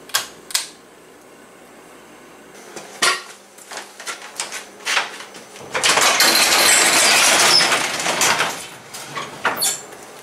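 Two quick clicks from a shop light's pull-chain switch, then a few knocks and clatters, and a sectional garage door rattling loudly up its metal tracks for about two and a half seconds, starting a little past halfway.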